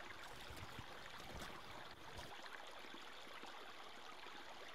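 Shallow stony woodland brook babbling, a faint steady rush of water over stones, with a few soft low knocks in the first couple of seconds.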